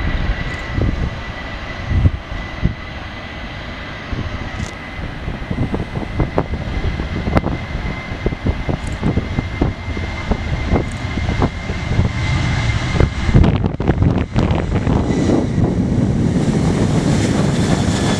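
Boeing 737-800's twin CFM56 jet engines at takeoff thrust during its takeoff roll. A steady high whine rides over a rumble, and the rumble swells louder over the last few seconds as the jet passes close by.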